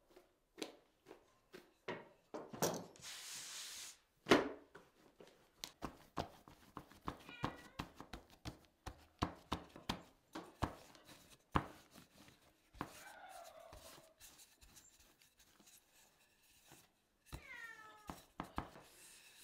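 Hands slapping and patting a round of dough on a wooden board, then a wooden rolling pin rolling and knocking over it: a string of soft taps and knocks, with a brief hiss around three seconds and a single loud thump about four seconds in. A few short high cries falling in pitch come and go, the last and clearest near the end.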